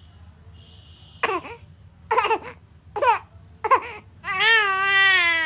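Infant crying: four short falling cries about a second apart, then a long, loud wail from about four seconds in.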